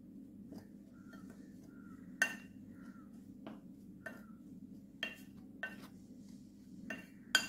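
Metal spoon stirring a dry rice-flour and grated-coconut mixture in a glass bowl: soft scraping, with several sharp clinks as the spoon strikes the glass at irregular intervals. A steady low hum runs underneath.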